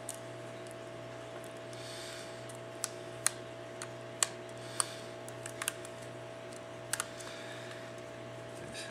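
Pry tool working an LG G2 phone's housing apart: a scatter of sharp, irregular clicks, mostly in the middle seconds, over a steady low hum.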